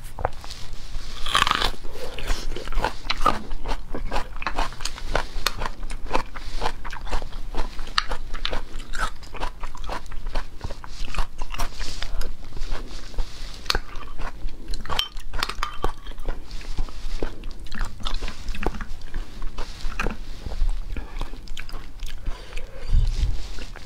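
Close-up eating of braised beef bone marrow: biting and chewing with many short clicking mouth sounds, and a metal spoon scraping marrow out of the bone.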